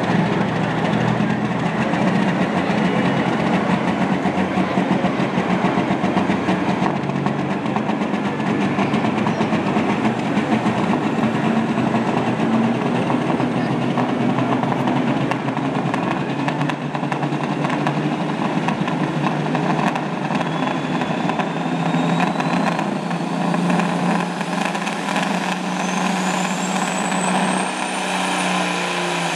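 Big-rig semi truck's diesel engine running hard under load while pulling the weight sled, its stacks smoking. A high whine climbs steadily in pitch over the last several seconds.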